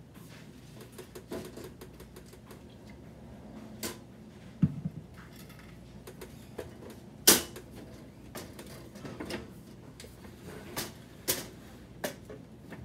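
Irregular sharp clicks and knocks as plant pots and the hinged door and frame of a small tabletop greenhouse are handled. A low thump comes about a third of the way in, and the loudest, sharpest click follows a couple of seconds later.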